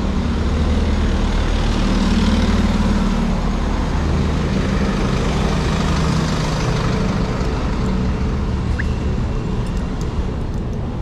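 Busy street traffic, with a motor vehicle's engine running close by over steady road noise.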